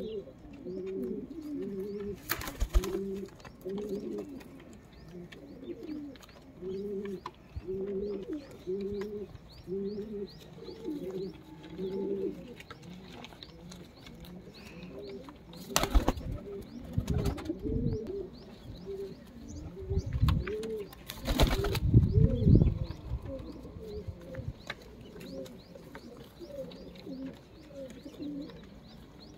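Punjabi flying pigeons cooing over and over in a flock, short arched calls following one after another. A few loud, short thumps break in, one a couple of seconds in, one around the middle and a cluster about two-thirds through.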